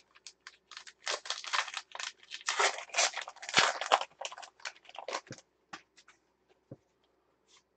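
Foil wrapper of a baseball card pack being torn open and crinkled, a dense run of crackles for about five seconds, then a few scattered clicks as the cards are handled.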